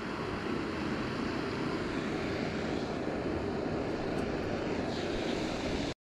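Steady rush of water released through a lake's dam spillway, an even noise with no change in level.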